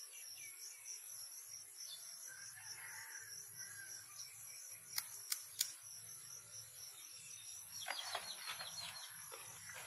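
Insects chirping in a steady, pulsing chorus, with three sharp clicks about five seconds in and a quick run of rattling clicks near eight seconds.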